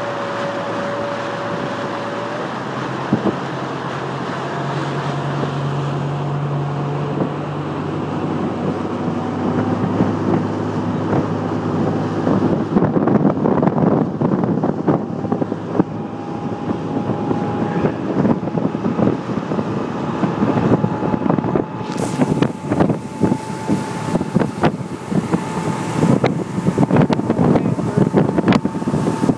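Boat motor running at speed, its whine climbing slowly in pitch, with wind buffeting the microphone. In the last several seconds it is joined by rapid knocks and slaps.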